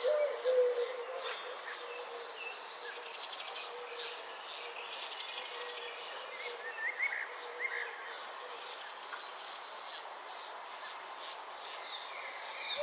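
Insects trilling in a steady, high, continuous drone, with a few short bird chirps scattered over it; the insect chorus cuts out about eight seconds in, leaving quieter forest ambience.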